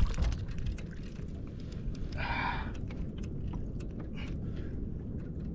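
A person's single breathy exhale about two seconds in, over a low steady rumble with scattered small clicks and taps.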